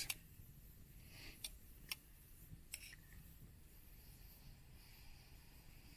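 Near silence, with three faint, sharp clicks between one and three seconds in.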